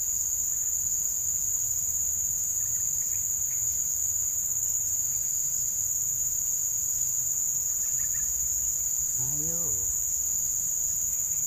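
Steady, high-pitched chorus of insects, an even unbroken drone. About nine seconds in, a short voice-like sound rises and falls under it.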